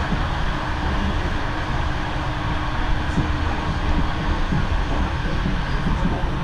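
Steady running noise inside a Swiss SBB InterRegio passenger coach travelling at speed: a continuous low rumble of the wheels on the rails, with a faint steady hum for a couple of seconds.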